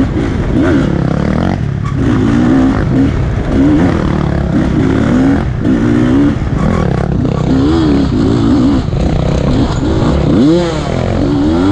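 Rieju enduro dirt bike's engine under way on a wooded trail, its pitch rising and falling about once a second as the rider opens and closes the throttle.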